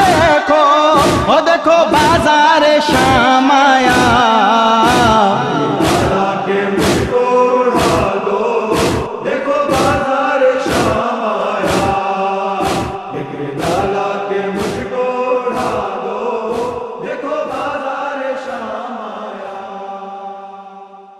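Male voices in a drawn-out nawha chant over a steady thump about once a second, the matam chest-beating rhythm of the lament. The thumps stop near the end and the voices fade out.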